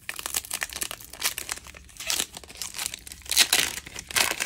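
Plastic trading-card pack wrapper being torn open and crinkled in the hands: a dense crackling, with louder rips about two seconds in and again past three seconds.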